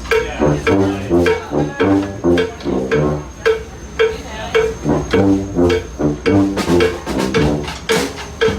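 Street band of brass and drums playing a short repeating riff over a strong low brass bass line, with drum hits on the beat.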